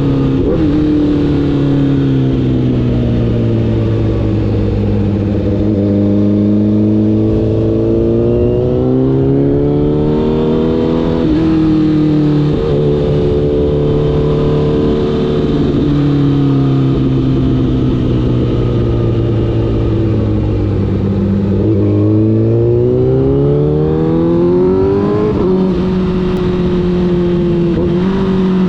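Honda CBR1000RR's inline-four engine under way, its pitch easing down, holding, then climbing again as the rider rolls off and accelerates, with several sudden jumps in pitch at gear changes.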